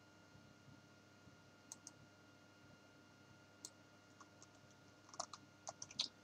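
Near silence with faint, scattered clicks of a computer mouse and keys, a quick run of them near the end, over a faint steady hum.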